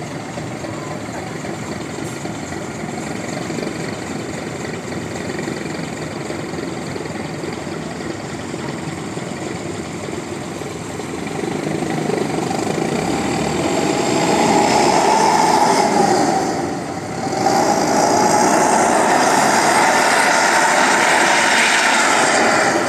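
Bus engine running with a growling exhaust, steady at first, then revving up about halfway through. It dips briefly and picks up again near the end.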